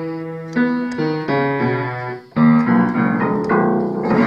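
Ukraina upright piano being played by hand: a string of single notes and chords, with a louder chord about two and a half seconds in and a quick run of rising notes near the end.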